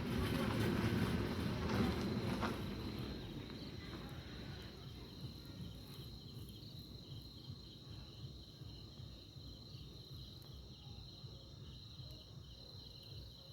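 Insects, likely crickets, chirping steadily: a continuous high trill with faint regular pulses under it. Low rustling noise in the first couple of seconds fades away.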